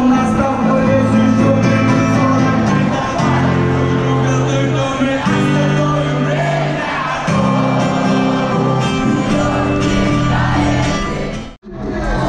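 Live stadium concert music: a male voice singing over held synth chords and a bass line, played through the PA and picked up from the crowd by a GoPro microphone. The sound drops out briefly near the end.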